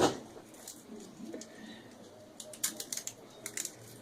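Adhesive tape being pulled and wrapped around a small electric motor: a sharp click at the start, then a run of short crackling clicks and handling sounds in the second half.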